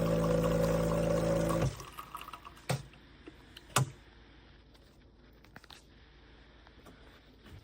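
An electric appliance hums steadily, then switches off abruptly a little under two seconds in. Two sharp clicks follow about a second apart.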